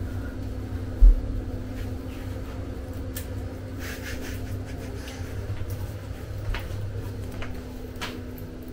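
Indoor room tone with a steady hum, a single low thump about a second in, and scattered light knocks and rustles of things being handled.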